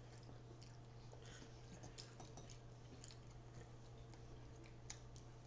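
Faint chewing and mouth sounds from eating, scattered small clicks over a steady low electrical hum.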